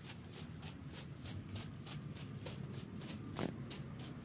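Footsteps of a person walking on a concrete floor, soft scuffing and shuffling in a quick, even rhythm, with one slightly louder knock about three and a half seconds in.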